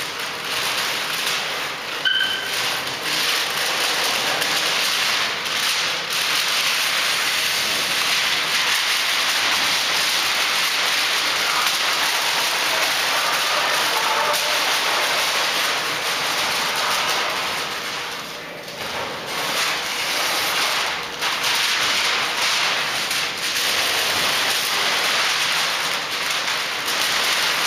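Masking paper and tape being peeled and torn off a freshly painted truck cab: a continuous crackling rustle of paper that eases briefly about two-thirds of the way through.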